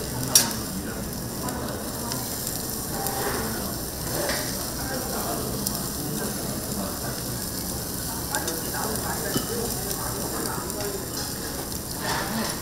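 Giant beef ribs sizzling steadily as they grill, with scattered sharp clicks and one loud click about half a second in.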